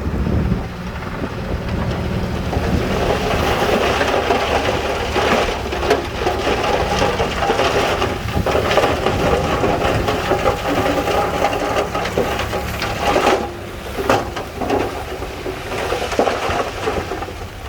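Heavy earthmoving machinery working over stone and mud: a diesel engine running under load with a dense crunching and clattering of stones and steel, broken by sharper knocks.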